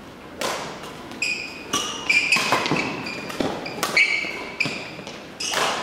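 Badminton rally: rackets striking the shuttlecock about every half second, mixed with short high squeaks of court shoes on the sports-hall floor.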